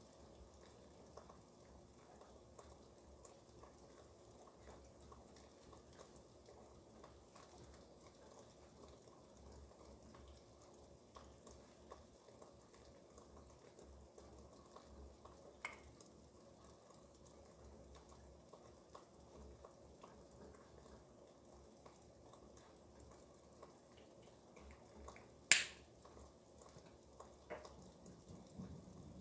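Faint steady rain with scattered drips falling off a roof. One sharp click sounds about 25 seconds in, with two fainter clicks around 16 and 27 seconds.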